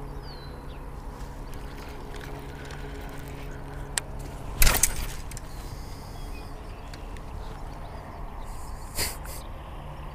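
A baitcasting rod and reel cast that catches on something behind the angler: a short sharp swish and rattle about halfway through as the reel backlashes into a tangle of braided line. A few smaller clicks of line and reel handling come before and after, over a steady low motor-like hum.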